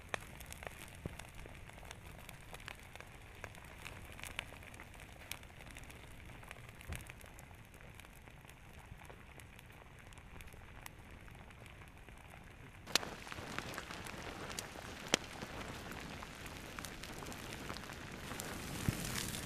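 Faint crackling with scattered sharp pops from pahoehoe lava flowing over grass, the vegetation in its path burning and smoking. The crackling grows louder and denser about two-thirds of the way through.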